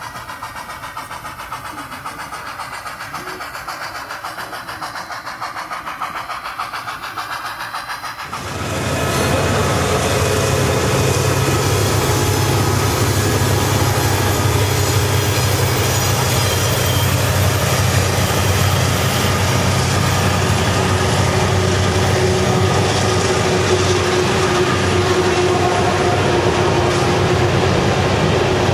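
Model trains running on a layout. First comes a quieter, even ripple of wheels rolling over the track. About eight seconds in, the sound jumps to a louder, steady low hum and rumble as a freight train runs close by, and this holds to the end.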